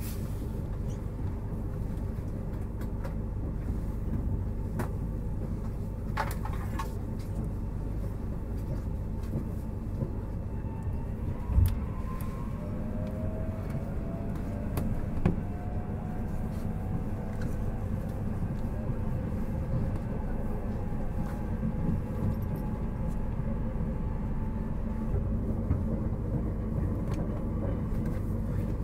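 In-car running sound of a JR Hokkaido 721 series 4000-subseries electric train with Toshiba GTO inverters: a steady low rumble of wheels on rail. A faint inverter whine gliding in pitch comes in from about twelve seconds in, and there are sharp thumps near twelve and fifteen seconds.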